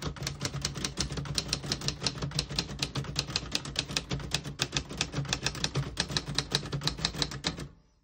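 1952 Royal Quiet De Luxe manual portable typewriter being typed on: a fast, even run of keystrokes, several a second, with the typebars striking the platen. The keys strike without sticking or skipping. The typing stops shortly before the end.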